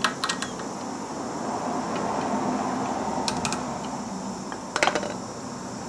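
A few light metallic clinks and taps from hand tools and steel parts at a front wheel hub, as the splined end of a CV shaft is worked on: a few at the start, a pair about three seconds in and a short cluster near five seconds. Steady background noise runs underneath.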